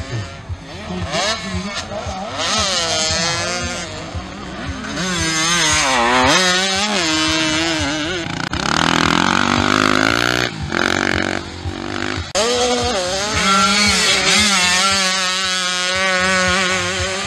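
Small two-stroke motocross bike engines revving hard, the pitch climbing and dropping again and again as the riders throttle on and off and shift through the gears. The sound changes abruptly a few times.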